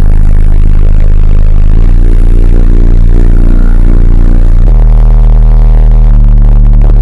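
Home subwoofer system playing a bass-heavy track very loud: long held deep bass notes that change pitch about every one to three seconds.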